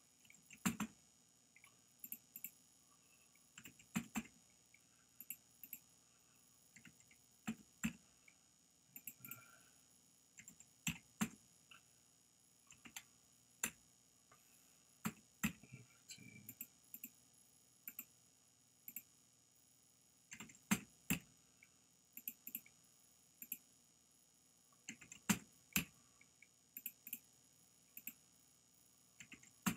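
Computer mouse and keyboard clicks while files are selected and renamed: sharp single and paired clicks at irregular intervals of a second or two.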